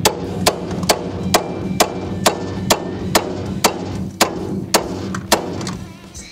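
Hammer blows on a steel separator fork wedged into a front suspension joint, about two strikes a second, about a dozen in all, stopping about five seconds in. The joint is stuck and the separator alone is not freeing it.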